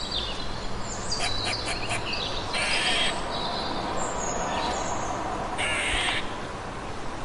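Crows cawing twice, a few seconds apart, with short high chirps and clicks from other birds in between.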